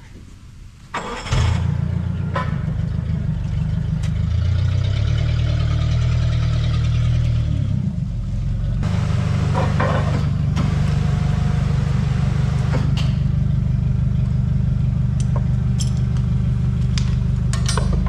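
Propane forklift engine starting about a second in and then running steadily close by, with a brief change in pitch partway through. A few sharp clicks near the end.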